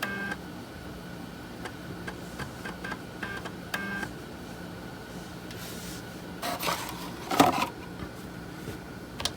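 3.5-inch floppy disk drive testing a disk: the head stepper motor gives short buzzing chirps and clicks as it steps across the tracks, over a steady low hum. About seven seconds in there are a few louder rattling knocks.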